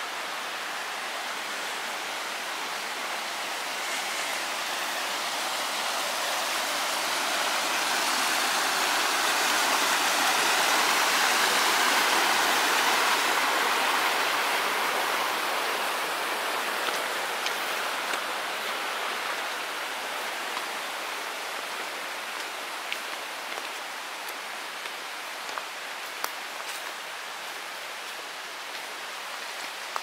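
Small waterfall rushing down a narrow rock chute into a pool, a steady splashing rush that swells louder toward the middle and eases off again, with a few faint ticks in the second half.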